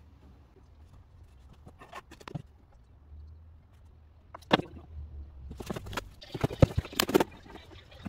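Irregular knocks and taps on wood as the slatted headboard of a wooden bed is handled and worked by hand, a few at first, then a quick flurry in the second half.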